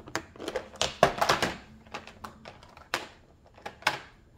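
Small clear plastic bead boxes clicking and knocking against each other and against the plastic storage case as they are fitted into its compartments: a quick run of clicks about a second in, then scattered single knocks.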